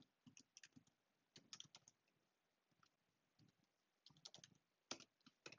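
Faint keystrokes on a computer keyboard: quick typing in short clusters of clicks, with brief pauses between them.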